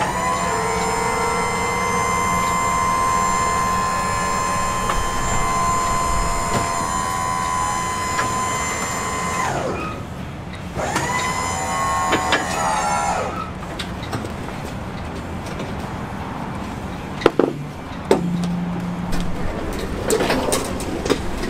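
Rescue lift gate's electro-hydraulic pump motor running with a steady high whine for about nine seconds, dropping in pitch as it stops, then running again for a couple of seconds as the gate lowers. Near the end come a few metal clanks as the aluminium platform is folded out by hand.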